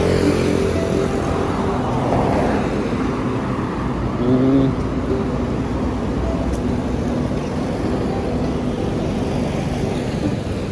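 Road traffic: motor vehicles running and passing, with one passing louder about four to five seconds in.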